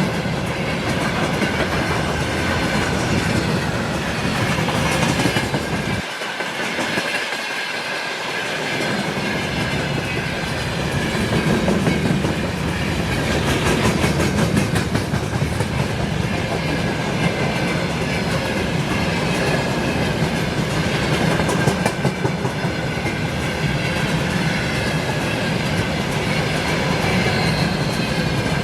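Freight train wagons rolling steadily past, wheels clacking over the rail joints with a continuous metallic rattle and a thin steady high tone from wheel on rail.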